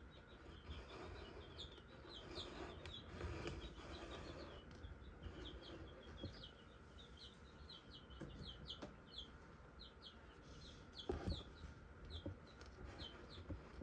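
Faint, high-pitched chirping of small birds: short falling peeps, several each second, going on throughout. A soft knock about eleven seconds in is the loudest moment.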